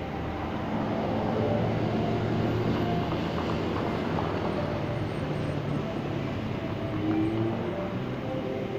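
Road traffic: a vehicle engine running with a low steady hum, louder from about a second in, with indistinct voices mixed in.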